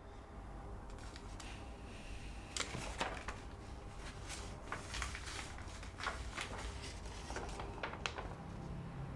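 Hands handling papers and small things on a desk: irregular rustles and taps, about a dozen, over a low steady room hum.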